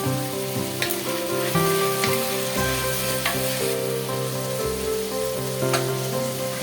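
Food sizzling as it fries in a pan, with a few sharp clicks, over background guitar music with chords changing every second or so.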